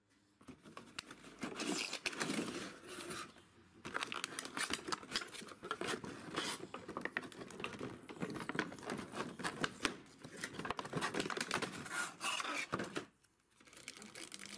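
Clear plastic packaging crinkling and rustling as it is handled: a stiff blister tray and a plastic bag being pulled and pressed, in several spells with a short pause near the end.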